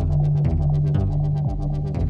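Electronic dance music with a synthesizer bass line and fast, even hi-hat-like beats.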